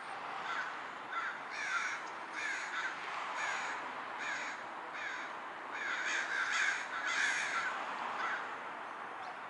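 A flock of crows cawing over and over, several birds overlapping, about two caws a second.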